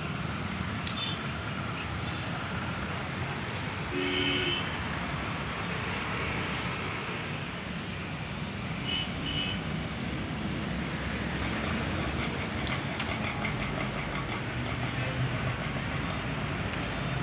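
Steady road traffic noise, with a short horn toot about four seconds in.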